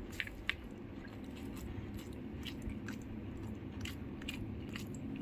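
A person chewing food with mouth close to the microphone, with scattered small crisp clicks and crunches through the chewing.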